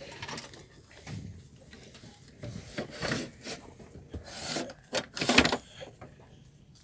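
A hand rubbing and scraping over the fabric and mesh pocket on the back of a train seat: a series of irregular scrapes, the loudest a little past five seconds in.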